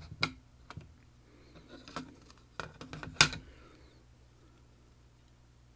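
Small metal lock parts, sliders and pins from a disassembled M&C Condor lock, clicking and clinking as they are handled and set down: several sharp clicks in the first three and a half seconds, the loudest just after three seconds, then only a faint hum.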